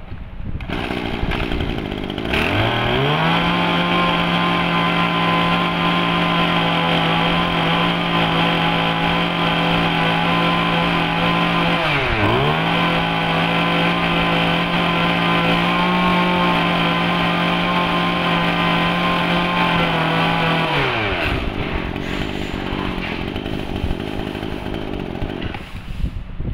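Kawasaki 27cc two-stroke brush cutter engine running. About two seconds in it revs up to full throttle and holds a high steady whine. Around the middle it dips briefly and climbs back, then near the end it drops back to idle.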